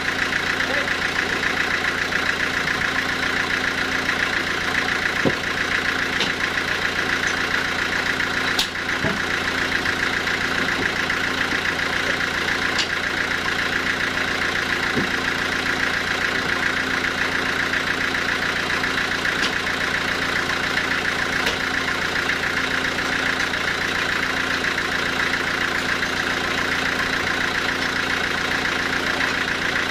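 Band sawmill running steadily, its engine and saw turning with an even hum. A few sharp knocks of the heavy log being shifted on the carriage, the loudest about nine seconds in.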